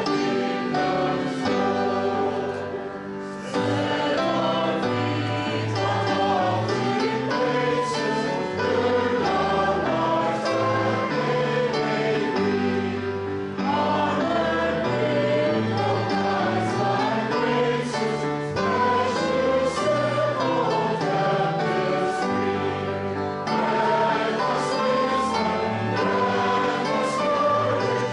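A choir singing sacred music with instrumental accompaniment, held bass notes under the voices. It breaks briefly between phrases about three seconds in and again around thirteen seconds.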